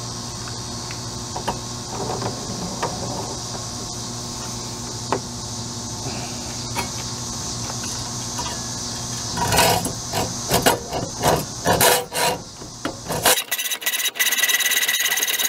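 Hacksaw cutting through the bronze sprue of a fresh sand casting clamped in a bench vise. After a stretch of steady background noise with a few light taps, separate rasping saw strokes start about two-thirds of the way in. Near the end they run together into fast, even sawing.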